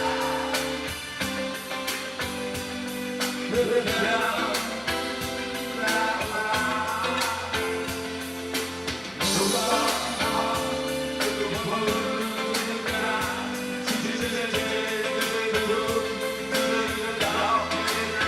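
Music with a singing voice over instruments and a steady beat.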